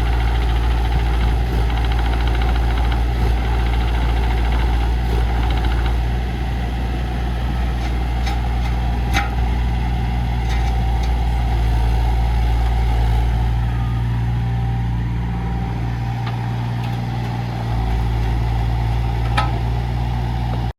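JCB 8025 ZTS mini excavator's three-cylinder Perkins diesel running steadily, its low note changing briefly about two-thirds of the way through. A few sharp clicks come through over the engine.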